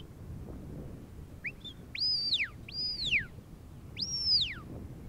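Sheepdog handler's whistled commands to a working Border Collie: a couple of short rising chirps, then three long notes about a second apart, each shooting up sharply and sliding back down.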